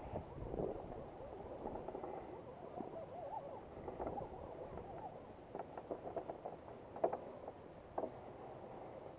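Axial SCX10 radio-controlled rock crawlers driving over rock: small electric motors and geared drivetrains whine with a wavering pitch as the throttle changes. Sharp clicks and clatter of tires and chassis on stone come in the second half, the loudest about seven seconds in.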